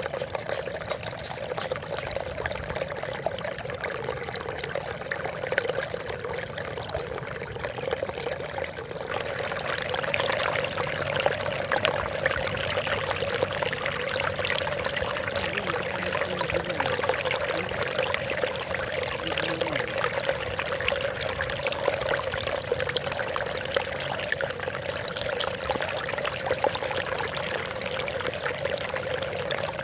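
Water trickling and splashing steadily without a break; it grows a little louder about nine seconds in.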